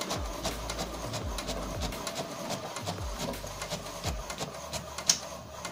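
HP DeskJet Ink Advantage 2676 inkjet printer printing a black-and-white copy: a mechanical clatter of repeated clicks with short motor runs recurring every second or so as the sheet is fed out, and a sharp click about five seconds in.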